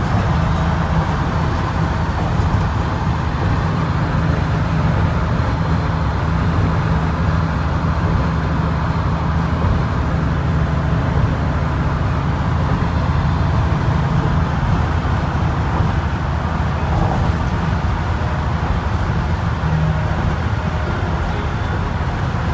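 1956 Ford F100's 272 Y-block V8 running steadily at highway cruising speed, with road and tyre noise, heard from inside the cab.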